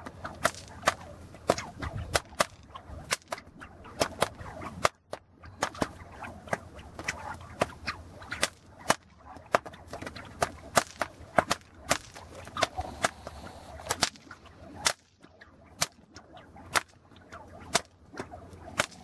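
A pair of cow whips cracked in a steady run of sharp cracks, about one and a half a second, pausing briefly twice. Wind rumbles on the microphone between the cracks.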